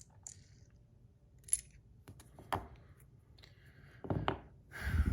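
A handful of sharp clicks and knocks, spaced about a second apart and loudest near the end, from handling a stainless steel bar spinner fidget toy.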